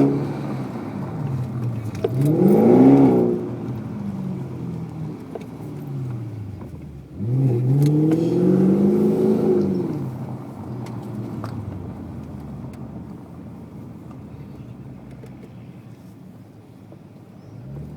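BMW 745i V8 with a custom-made exhaust, revved twice from idle: a short blip about two seconds in and a longer rev about seven seconds in, each climbing and falling back. Afterwards it settles to a steady, quieter idle.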